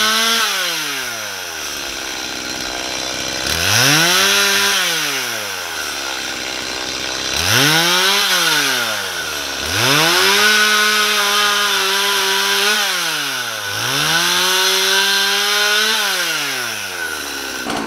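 Stihl two-stroke chainsaw with a freshly sharpened chain cutting through small birch logs. The engine revs up to full throttle for each cut and drops back to idle between cuts, about four times.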